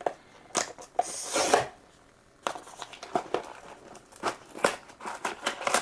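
Blind-box packaging being opened by hand: a few clicks, a short tearing sound about a second in, then crinkling and rustling of the packaging.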